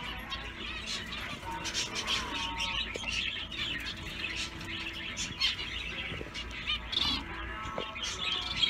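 A conure chirping and chattering in many short, quick notes, with a few small clicks among them.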